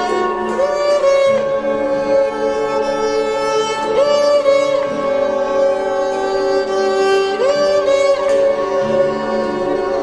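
Instrumental background music: a string melody that slides up into long held notes over steady sustained lower tones.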